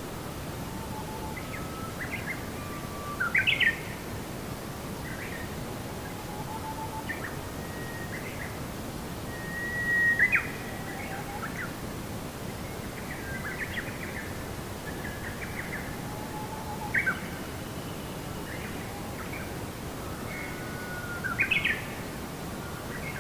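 Wild birds chirping and calling: short scattered chirps and brief whistled notes, a few louder ones about a quarter, half, three-quarters and nine-tenths of the way through, over a steady background hiss.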